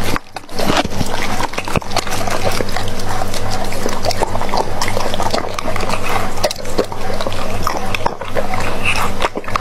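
Doberman pinscher eating raw meat from a plate: wet chewing, smacking and slurping, with a dense run of quick clicks from teeth and tongue, broken by a few short pauses.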